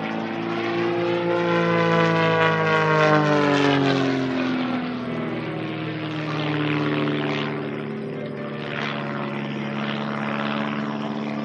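Pitts aerobatic biplane's piston engine and propeller running hard, its pitch rising and then falling as it manoeuvres, loudest a few seconds in, then carrying on at a steadier pitch.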